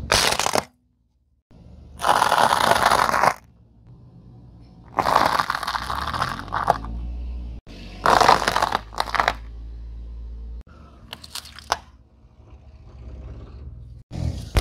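A car tyre rolling over and crushing plastic and brittle objects: five or six separate bursts of crunching and cracking, each lasting a second or two, with a low rumble between them.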